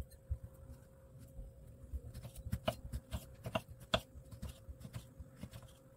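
Kitchen knife cutting ripe tomatoes into chunks on a wooden cutting board: irregular soft taps as the blade goes through and meets the board.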